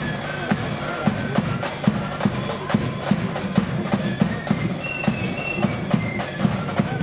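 A marching flute band playing a tune, flutes carrying the melody over a steady beat of snare and bass drums.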